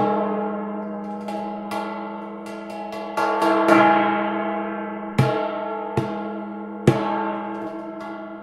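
Waterphone's metal rods struck one after another, about seven strikes, each ringing on and overlapping the others above a steady low tone.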